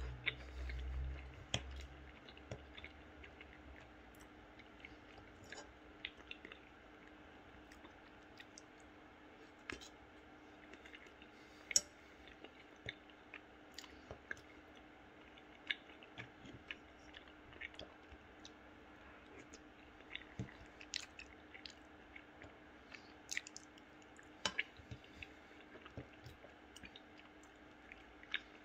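A person chewing penne pasta close to the microphone, with many small wet mouth clicks and smacks scattered throughout. A faint steady hum sits underneath, and there is a low rumble in the first second or so.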